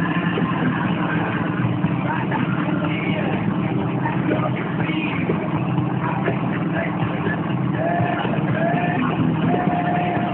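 Coot amphibious ATV's engine running steadily under way, heard from aboard the vehicle. A few faint sliding tones sound near the end.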